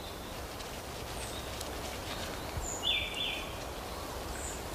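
Forest ambience: a steady hiss and low rumble with a few short, high bird chirps, and one harsh, buzzy call lasting under a second about three seconds in.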